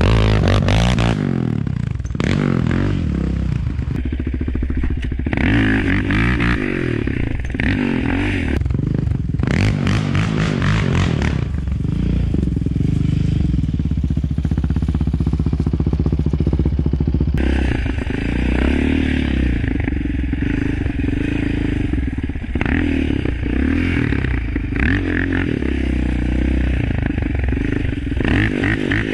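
2019 Yamaha Raptor 700's single-cylinder four-stroke engine running through an Alba Racing full exhaust system with ECU tune, its revs rising and falling repeatedly.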